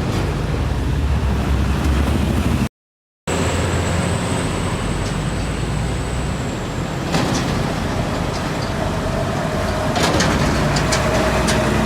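Heavy diesel trucks passing on a road, with a steady low engine rumble. The sound drops out for half a second about three seconds in, and a few sharp clicks come near the end.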